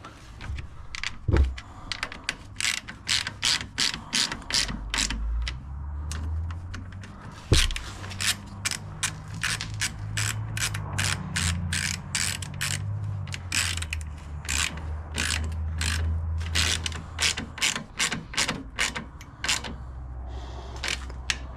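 Socket ratchet wrench clicking in quick repeated strokes as nuts are run down and tightened on a snowblower, with two sharper knocks and a low hum underneath through the middle of it.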